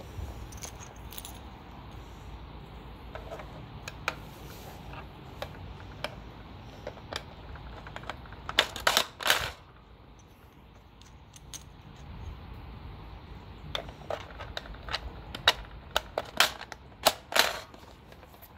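Plastic toy pump-action shotgun being handled with its action worked, giving sharp plastic clacks and clicks: a tight cluster about halfway through and a run of them near the end.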